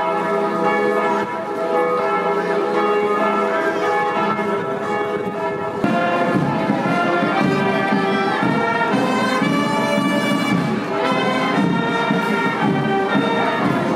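Church bells ringing a full peal, many steady overlapping tones; about six seconds in the sound grows louder as more, shifting tones join.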